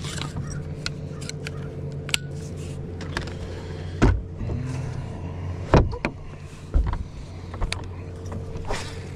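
Steady hum of a bass boat's electric trolling motor, with three sharp knocks on the boat about four, six and seven seconds in and lighter clicks between them.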